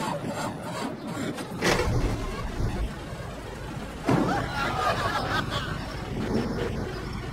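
A vehicle engine idling low and steady in the street. About four seconds in comes a short burst of studio-audience laughter.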